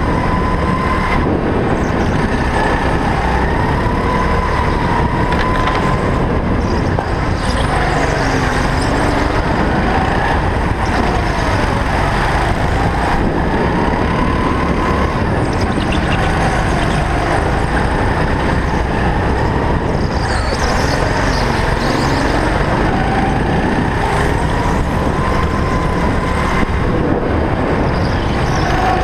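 Go-kart engine heard from on board the kart, its pitch dropping and climbing again every few seconds as the kart brakes into corners and accelerates out, over a loud steady rush of wind and rolling noise.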